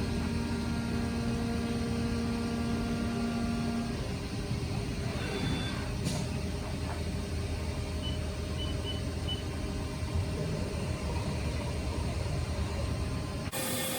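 CNC milling machine taking a light finishing cut in an aluminium part. It runs with a steady mechanical hum, and a steady tone stops about four seconds in. Four short high beeps come about two-thirds of the way through.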